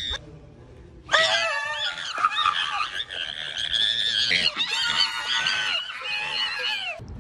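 A voice screaming in a high-pitched, honking screech that starts about a second in and goes on for about six seconds, its pitch wavering up and down.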